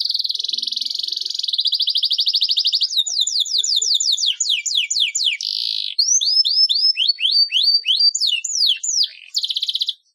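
Domestic canary singing a long song: a fast rolling trill, then a run of quick whistles sweeping down in pitch, a series of short rising notes, and a closing trill, breaking off just before the end.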